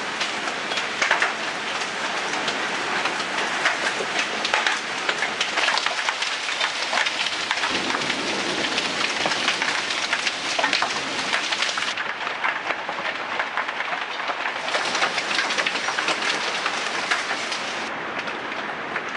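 Hailstorm: hail and rain falling hard, a dense run of sharp clicks from hailstones striking, over a steady hiss of rain.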